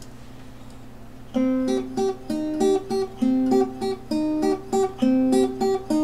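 Acoustic guitar playing an instrumental intro, alternating low bass notes with plucked chords in a steady rhythm. It starts about a second in, after a faint low hum.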